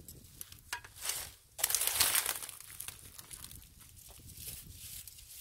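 Dry reed stalks crackling and rustling as they are trampled and brushed against: a few short crackles, then a louder burst of crackling a second and a half in that dies down to faint rustling.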